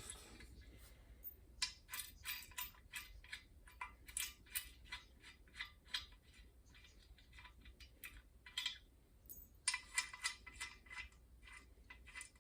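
Faint, quick metallic clicks and clinks in two spells, from the mounting screws of an exercise bike's handlebar post being taken out and handled.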